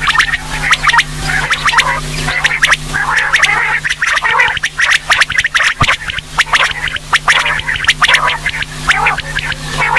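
Female quail calling: rapid runs of short, raspy notes repeating over and over, with a steady low hum underneath.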